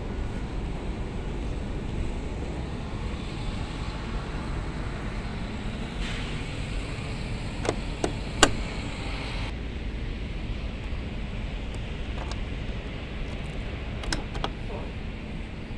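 Excavator cab door handle and latch being worked. There are a few sharp metallic clicks about eight seconds in, the loudest just after, and two more near the end, over a steady low rumble.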